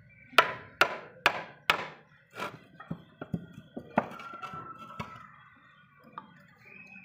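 A hammer strikes a chisel as it chops a mortise into a mahogany board. There are four sharp blows about two a second, then a run of lighter, irregular knocks.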